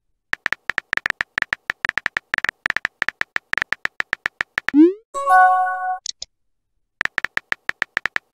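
Rapid virtual-keyboard tap clicks from a texting-story app as a message is typed, several taps a second. About five seconds in, a quick rising swoosh and a short synthesized chime of a few tones mark the message being sent. The tapping starts again near the end.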